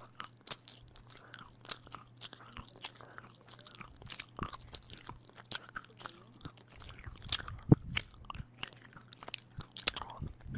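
A person chewing and biting food close to the microphone: many short, irregular crunches and mouth clicks.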